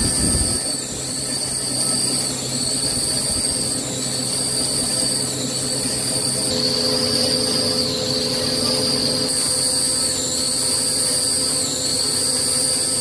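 Vertical CNC lathe rough-turning a forged steel ring, with coolant spraying onto the cut. The steady cutting noise carries a high whine that dips in pitch regularly, about every one and a half to two seconds.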